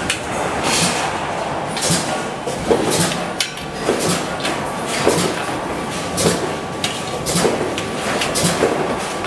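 Stainless steel wire dish-rack panels clanking and rattling as they are handled and stacked at a press brake. Sharp metal knocks come irregularly, about one every half second to a second, over steady factory machine noise.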